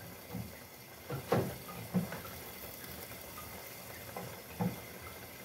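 Quiet kitchen food-prep sounds: a handful of light knocks and clicks as tomatoes are cut with a knife, over a faint steady hiss.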